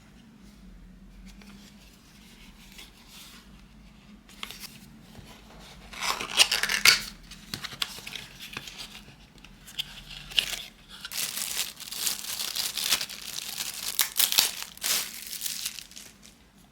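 Packaging being torn open and crinkled by hand to unbox a table clock. It starts with faint rustling, gets loud from about six seconds in, and then tears and crinkles steadily from about eleven seconds until just before the end.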